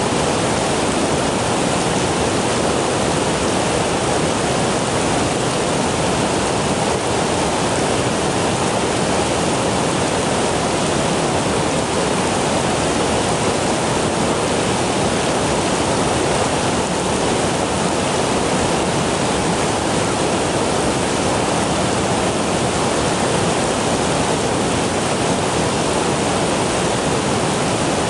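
Fast-flowing creek water rushing steadily: an even, unbroken wash of sound.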